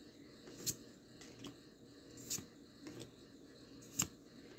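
Pokémon trading cards being flipped through by hand, each card slid off the stack with a faint, short snap, several times a second or so apart.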